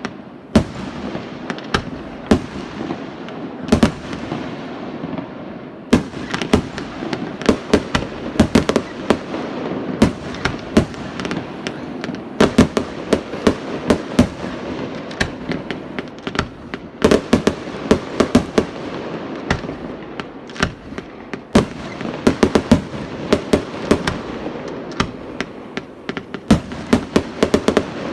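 Fireworks display: sharp bangs of exploding shells over a continuous rumble. The bangs come singly every second or two at first, then about six seconds in they thicken into rapid volleys of several a second.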